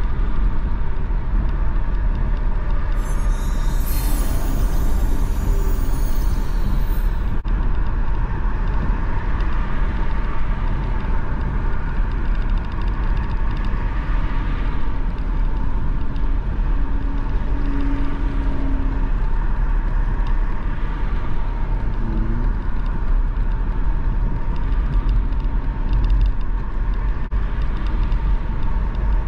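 Steady road and engine noise of a car driving at motorway speed, heard from inside the cabin: a continuous low rumble of tyres on the road. A hiss rises over it for a few seconds about three seconds in.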